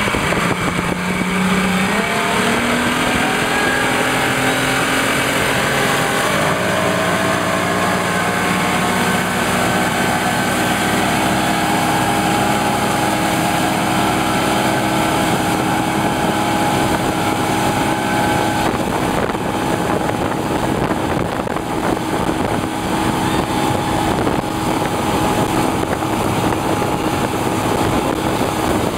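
Outboard motor of a motorboat pulling a towed banana boat, speeding up over the first six or seven seconds, then running steadily at speed. The rush of the churning wake runs underneath.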